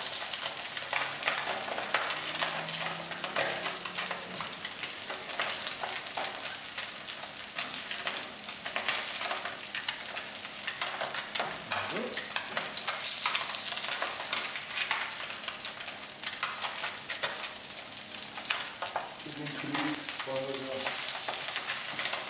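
Sea bream fillets frying skin-side down in hot olive oil in a frying pan: a steady sizzle with dense crackling as the skin crisps.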